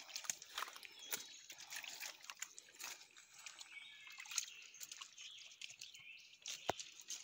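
Irregular crackling of dry leaves and twigs under footsteps and a small dog's paws moving through woodland leaf litter, with one sharper snap near the end.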